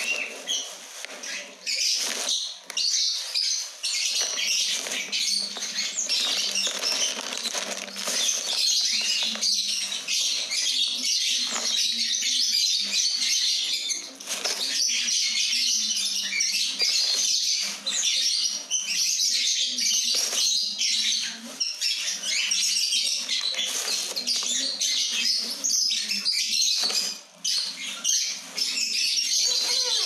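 Many small birds chirping and chattering at once, shrill and dense, with repeated rustling and knocks of a plastic sack being handled.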